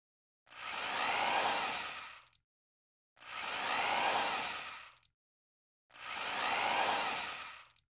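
Cordless drill driving three screws into wood, one after another: three runs of about two seconds each, each building up and tailing off, with silence between.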